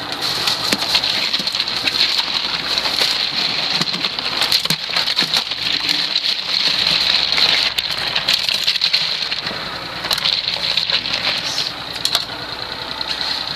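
Dense crackling and clattering noise, a little quieter near the end, over a boat's engine running.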